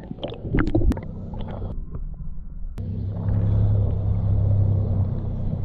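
River water heard through a GoPro's waterproof housing, held under and at the surface. A few sharp knocks and splashes come in the first second and a half. About three seconds in, a steady, muffled low rumble of flowing water sets in abruptly.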